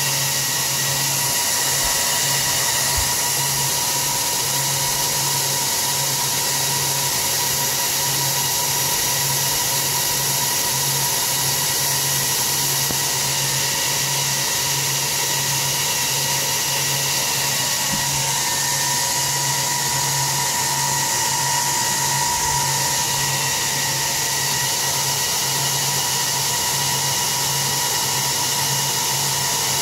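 Cooling fans of an HP ProLiant ML350 G6 tower server running, a loud steady whir with a fixed whine and a low, evenly pulsing hum.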